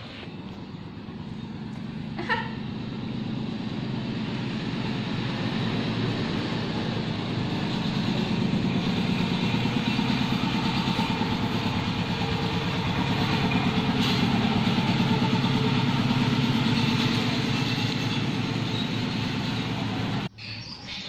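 A motor vehicle's engine running steadily. It grows louder over the first several seconds, holds, then cuts off abruptly near the end. A short sharp sound stands out about two seconds in.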